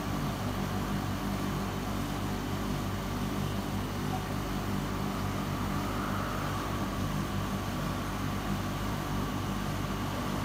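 Steady mechanical hum of aquarium pumps and filtration, with a faint steady whine above the hum.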